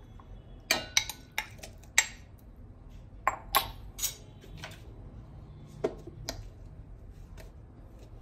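Glass bowl and stainless steel mixer-grinder jar clinking and knocking on a countertop as raw chicken pieces are tipped into the jar, with a few more knocks as the bowl is set down and the lid is fitted. The knocks come thick in the first four seconds, then a few sparser ones.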